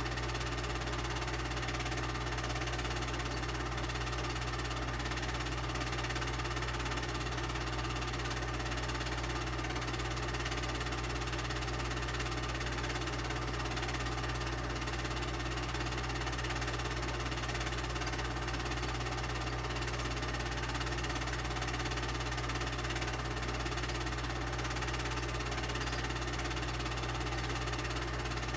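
Steady mechanical running noise of a home-movie film projector, with a constant low hum underneath.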